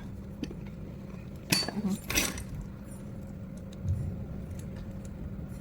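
Small metal parts clinking and clicking a few times as washers, screws and tools are handled, with the sharpest clinks about a second and a half and two seconds in.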